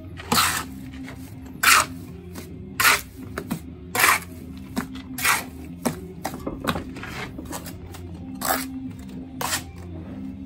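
Steel mason's trowel scraping and cutting wet mortar on a mortar board, a series of sharp scrapes roughly once a second.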